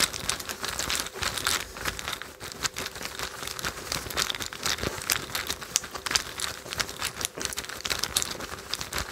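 Continuous irregular rustling and crinkling with many small clicks, made by hands handling a dark fabric pouch and cards.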